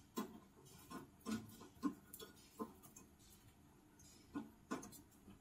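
Faint, irregular clicks and light knocks of metal tongs against a cooking pan and a plastic plate as food is lifted out and served, about eight taps with a gap in the middle.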